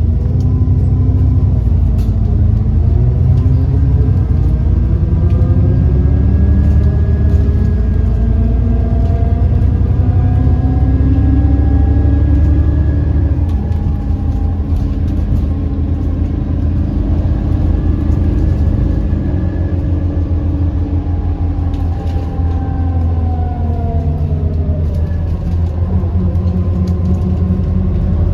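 Alexander Dennis Enviro400 MMC double-decker bus under way: a heavy low rumble with a whine that climbs in pitch as the bus pulls away and drops as it slows, twice over, and a thin high whine over the top for stretches. The loud axle drone and turbo whine are taken by the uploader as signs of a worn-out bus.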